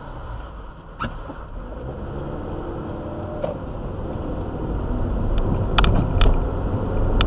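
Cabin noise inside a Kia Soul with a four-speed automatic as it moves off and picks up speed: the engine and road rumble grow steadily louder. A few sharp clicks come about six seconds in.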